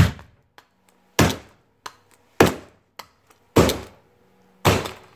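Hammer striking a plastic anti-theft clothing tag (not an ink tag) to break it open: five heavy blows, a little over a second apart.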